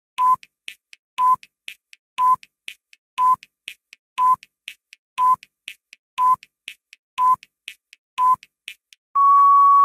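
Quiz countdown timer sound effect: a loud tick with a short beep once a second, nine times, with a softer tick between each, then a long steady beep about nine seconds in as the timer runs out.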